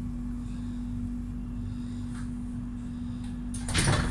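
Tram interior noise: a steady hum with one constant low tone over a low rumble. A brief, loud burst of noise comes near the end.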